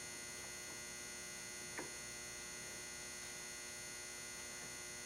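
Steady electrical hum at low level, with one faint short click a little under two seconds in.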